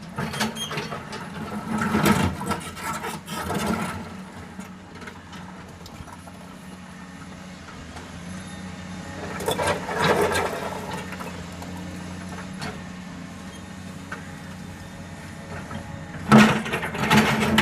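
A heavy vehicle's engine running with a steady hum, swelling louder three times: about two seconds in, around ten seconds in, and near the end.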